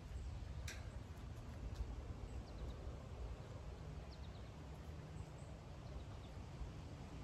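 Faint outdoor ambience: a steady low rumble with a few faint bird chirps and a couple of short clicks, about a second and two seconds in.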